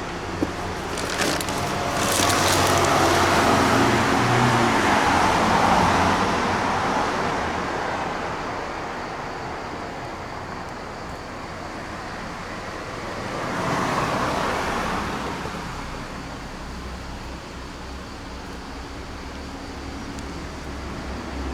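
Road traffic: a vehicle passes, building up about two seconds in and fading away, and a second one passes about fourteen seconds in, over a steady hum of road noise.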